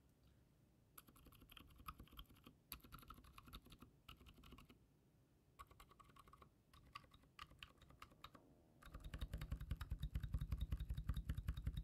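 Rapid typing on a mechanical keyboard with silent tactile switches, the keystrokes faint in several short runs, then much louder and denser from about nine seconds in. It is a demonstration of a faint high-pitched spring ping in the switches, which the typist puts down to their sharp tactile bump hitting the leaf.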